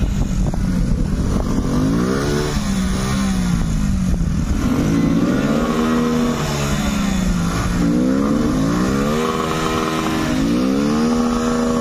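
Small motorcycle engine revving up and down again and again, its pitch swelling and dropping every second or two as the rider works the throttle under load, over a steady low rumble.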